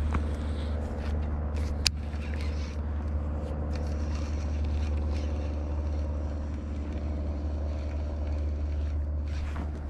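A steady low mechanical hum, like an engine running, with a single sharp click about two seconds in.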